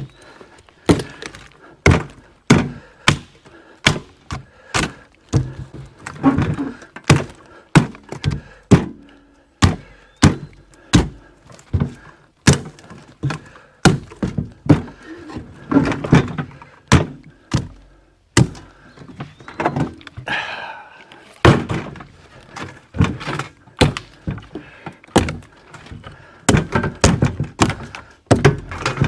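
Repeated hard wooden thunks, roughly one a second and now and then in quick pairs: a long wooden pole being knocked and worked against the dump cart and ground by hand.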